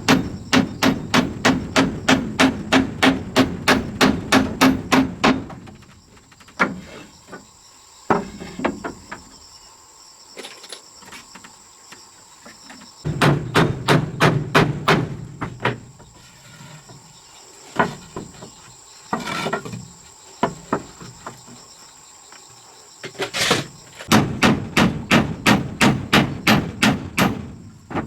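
Hammer blows struck in quick, even runs of about four a second, in three spells with a few separate knocks between them.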